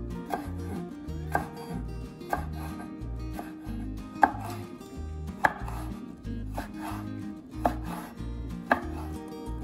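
Chef's knife slicing chili peppers on a wooden cutting board: sharp knocks of the blade hitting the board, about one a second.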